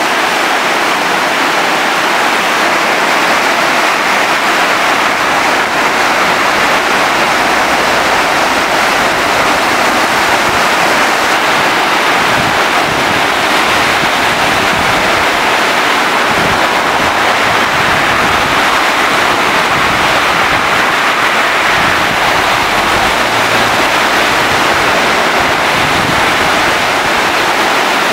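Flood-swollen stream after a night thunderstorm: muddy floodwater rushing and churning through standing waves and rapids in a loud, steady torrent.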